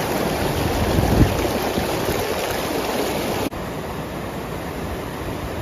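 Creek water rushing and splashing over a low rock ledge waterfall, close to the microphone. About three and a half seconds in it drops suddenly to a quieter, steadier rush.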